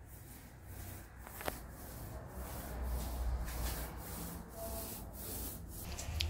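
Paint being spread over a gate in quick back-and-forth strokes: a rhythmic rubbing, about two to three strokes a second.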